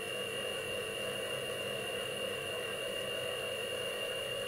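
Mini milling machine running with no load, its spindle turning on newly fitted, preloaded tapered roller bearings. It makes a steady hum with a steady high tone above it.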